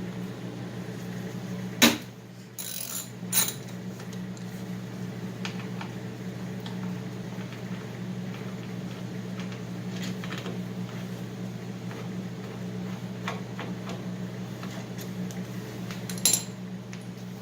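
Hand tools working on a car door's lock mechanism: small metallic clicks and ratcheting ticks, with three sharper knocks, two near the start and one near the end, over a steady low hum.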